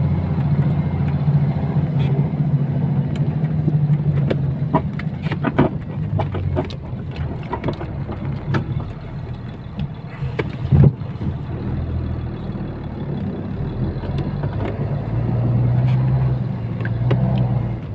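Cab interior of a KamAZ 65115 truck on the move: the steady drone of its diesel engine, with repeated short creaks and knocks from the cab's hydraulic locks behind the seat, and one sharper knock about eleven seconds in.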